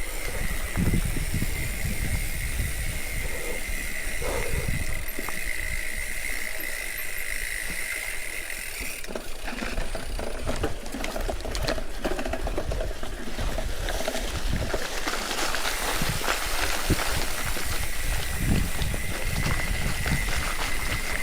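Mountain bike riding over a rough trail: steady low wind rumble on the chest-mounted camera, with rattles and knocks from the bike. A steady high tone runs through the first half, fades out, and returns near the end.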